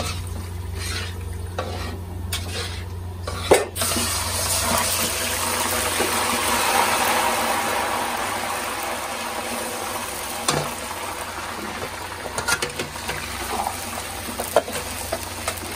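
A spoon scraping a metal pan in regular strokes, then a sharp knock, after which semolina and fat in an iron karahi start sizzling loudly, frying hard and slowly dying down. There are a few clicks of the spatula near the end.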